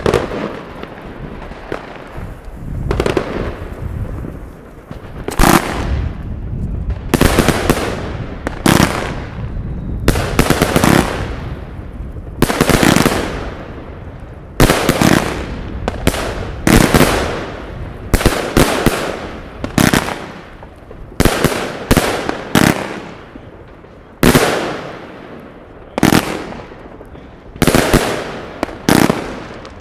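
Fireworks going off shot after shot, about two dozen sharp bangs at uneven gaps of roughly a second or two, each trailing off in a fading hiss.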